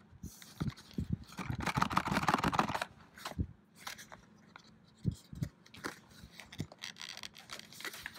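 Cardboard product box being worked open by hand: a couple of seconds of crinkling and scraping of paperboard and packaging, followed by scattered taps and rubs as the contents are pulled at.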